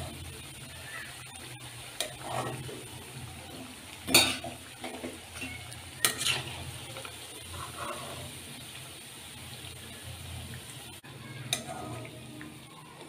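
Masala vadas deep-frying in hot oil with a steady sizzle. A steel slotted spoon turns them and lifts them out, clinking against the metal pan a few times, loudest about four seconds in.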